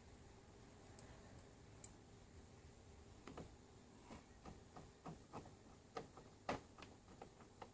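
Faint, irregular clicks and light knocks, about a dozen of them starting about three seconds in.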